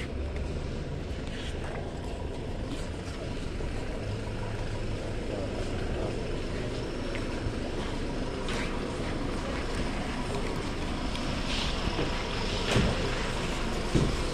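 Steady outdoor background rumble with faint voices from a crowd, and two sharp knocks near the end.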